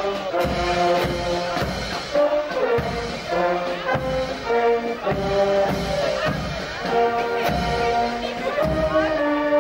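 Brass band music playing a melody in held notes over a steady beat.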